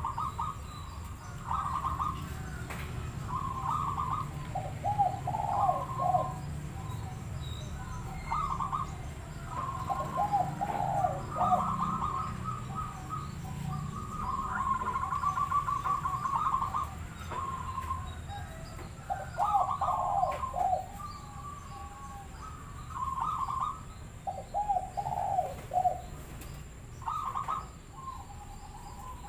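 Zebra dove (perkutut) cooing: short phrases of quick staccato notes, repeated every second or two with brief pauses.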